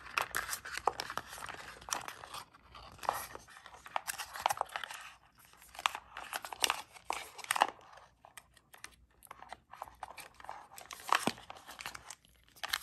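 Paper and card packaging rustling and crinkling as a coiled charging cable is slid out of its paper wraps, with irregular small clicks and scrapes from handling; it thins out for a couple of seconds past the middle, then picks up again.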